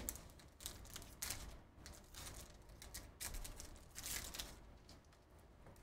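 Foil wrapper of a trading-card pack crinkling and tearing as it is pulled open by hand, in a string of short, irregular rustles.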